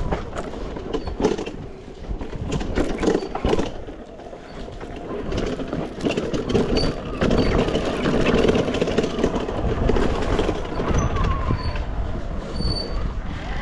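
Arctic Leopard electric e-bike riding over rough off-road ground: wind buffeting the microphone over a steady tyre rumble, with frequent clattering knocks from the bike jolting over bumps.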